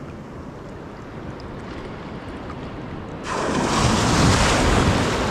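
Shallow sea water washing quietly, then about three seconds in a small wave breaks close by with a sudden loud rush of surf.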